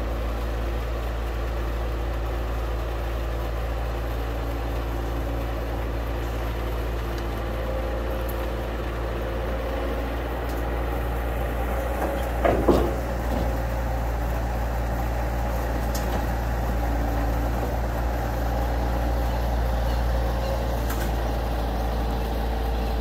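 Bobcat skid-steer loader's engine running steadily as the machine drives down the ramps off a flatbed trailer, with a loud clank about halfway through.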